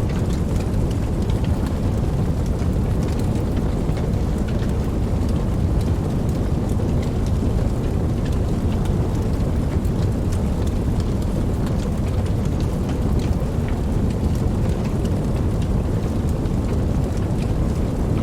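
Steady rain: a dense, even rush, deep and full, with faint scattered drop ticks above it.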